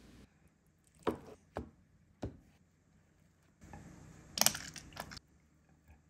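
Kitchen knife slicing through a block of canned ham, tapping the cutting board three times about half a second apart. About a second later comes a squeeze bottle of mustard squirting for about a second and a half.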